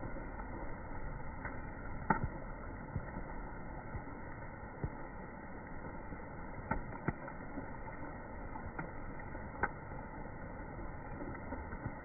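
Steady outdoor background noise with a handful of short, faint clicks and taps scattered through it.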